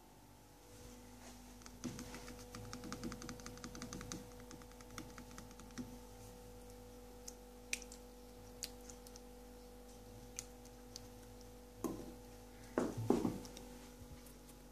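Olives clicking against each other and against a plastic bowl as a cat paws at them: a fast run of light clicks for a couple of seconds, then scattered single taps, and a cluster of heavier knocks near the end.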